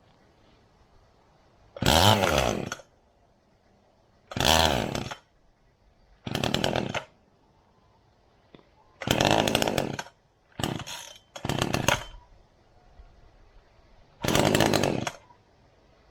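Two-stroke chainsaw being pull-started: seven pulls on the recoil starter, each cranking the engine for under a second without it catching.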